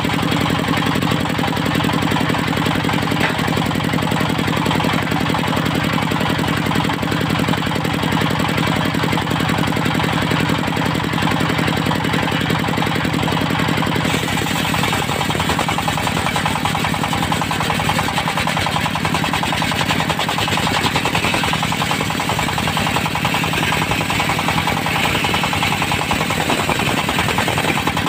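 Diesel engine driving a portable circular-saw sawmill, running steadily with a fast, even knock. About halfway through the sound changes, with the low engine tones shifting and more hiss high up.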